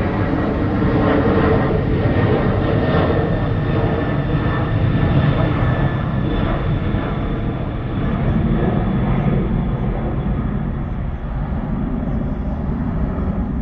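Airbus A300-600ST Beluga's twin General Electric CF6 turbofans at takeoff power: a loud, steady jet roar with a thin high whine running over it.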